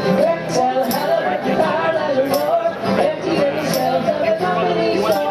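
Live folk song: an acoustic guitar strummed in a steady beat, about two strokes a second, with a voice singing a wavering melody over it.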